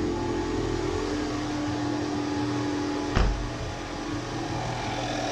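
Ford Mustang EcoBoost's turbocharged four-cylinder idling steadily, just restarted after a fuel pressure sensor replacement. A single loud thump about three seconds in.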